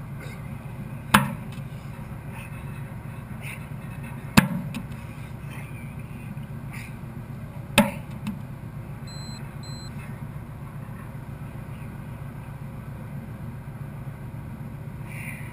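A 50 kg sandbag hitting the floor three times, a few seconds apart, each a heavy thud, over a steady low rumble. Two short faint beeps follow.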